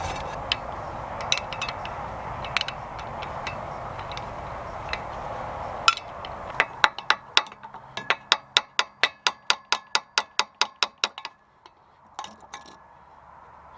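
Hand tools working on metal engine parts: a few scattered metallic clinks over a steady hiss, then from about halfway a regular run of sharp metallic clicks, about five a second, for some five seconds.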